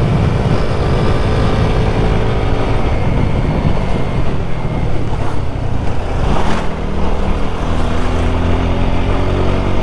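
Motorcycle engine running under way with wind rushing over the rider's camera microphone. The engine note holds steady early on, then changes after a brief rush about six and a half seconds in as the bike slows.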